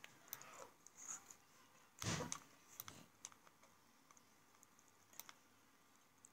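Faint, scattered clicks at a computer while a 3D model is turned on screen, with one louder knock and rustle about two seconds in.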